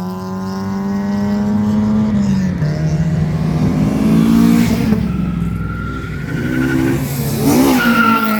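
Car engines accelerating hard past on the road, the engine note climbing and dropping back at gear changes.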